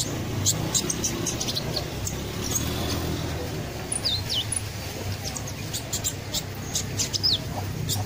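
A caged songbird chirping: rapid short high chirps with a couple of falling whistled notes, over a steady low background rumble.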